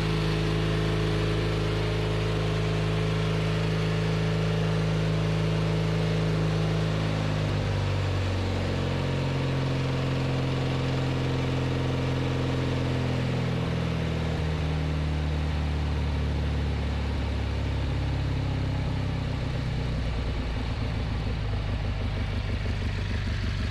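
The Kohler 18 hp Magnum engine of a Craftsman riding mower running, its pitch dropping in several steps as it is throttled back from a fast run to a low idle. Near the end the idle goes slow enough that its separate firing beats can be heard.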